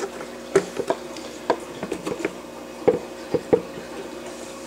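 Hard acrylic parts of a protein skimmer being handled, giving scattered light knocks and clicks at irregular intervals, over a steady faint hum.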